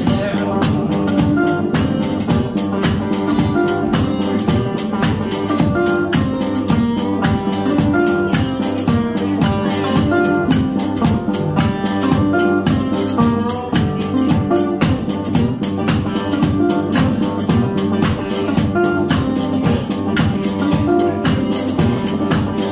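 Instrumental break of a live blues band: banjo picking over a steady kick-drum beat, with a second stringed instrument playing along.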